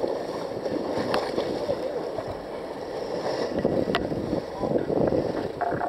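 Water rushing and splashing against the hull of a moving sport-fishing boat, with wind buffeting the microphone. A sharp click is heard about a second in and again about four seconds in.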